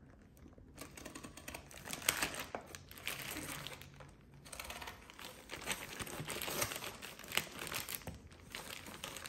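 Plastic bag crinkling and cardboard scraping as a knife is worked along the cardboard packaging of a scooter deck, with scattered small clicks.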